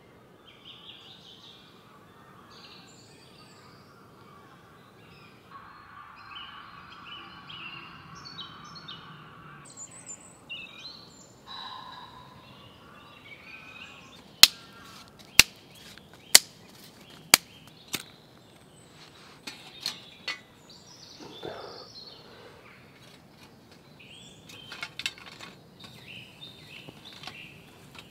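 Woodland birdsong: scattered chirps and short calls from several birds. About halfway in, four sharp cracks come about a second apart, then a few more, louder than the birds.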